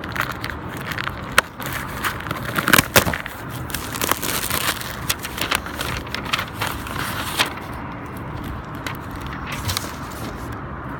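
Paper packaging rustling and crinkling as a box of books is unpacked by hand, with many small clicks and bumps, busiest from about two to five seconds in.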